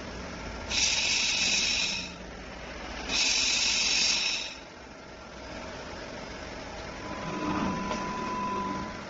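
Automated laser welding robot line hissing in two bursts of about a second and a half each, a second apart, then a steadier machine whine with a thin held tone for about two seconds near the end.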